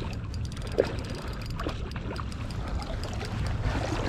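Wind rumbling on the microphone over moving river water, with a few faint scattered ticks and knocks.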